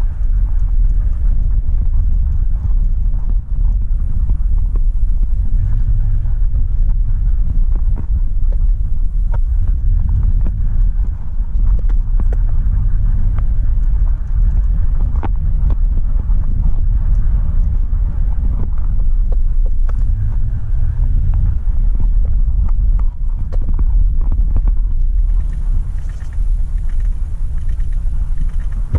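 Steady low rumble of road and engine noise heard inside a moving vehicle's cabin, with scattered small clicks and rattles.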